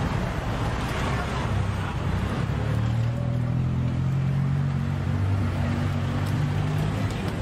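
Street traffic: a car engine running close by, its low hum strongest from about three seconds in until near the end, over a steady wash of traffic noise.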